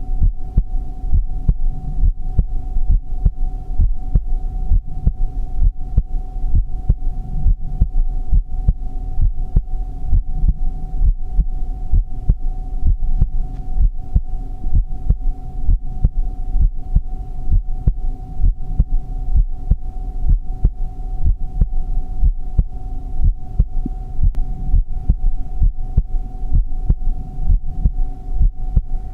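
Human heartbeat: an even, unbroken rhythm of low thuds, with a constant hum under it.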